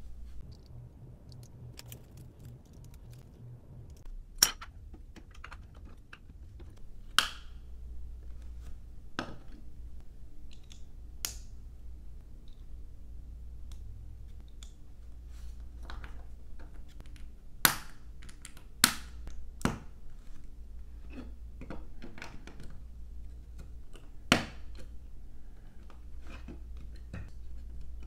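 LEGO plastic bricks being handled and snapped together: irregular sharp plastic clicks, with several louder snaps among many light ticks.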